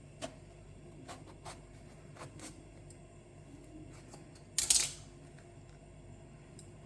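Kitchen utensils being handled: a few light clicks and knocks, then a louder clatter of several quick hits a little under five seconds in.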